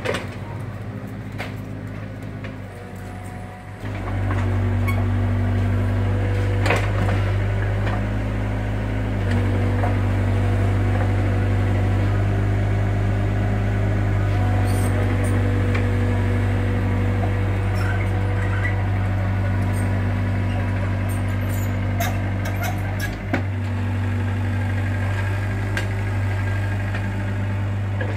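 Mini excavator's diesel engine running under load as the machine digs and spreads soil. The engine note rises sharply about four seconds in and then holds steady, with scattered clicks and knocks.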